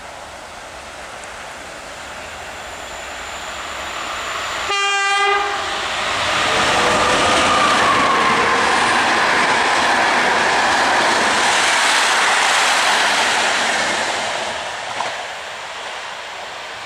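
Electric locomotive with a long passenger train passing at speed. A short horn blast comes about five seconds in. The loud noise of the train going by follows for about eight seconds, then fades as it moves away.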